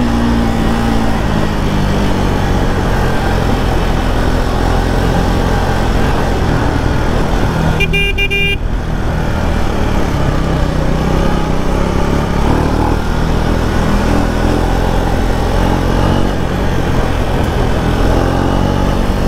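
Triumph Speed 400's single-cylinder engine and exhaust running steadily under way at road speed. A vehicle horn sounds briefly about eight seconds in.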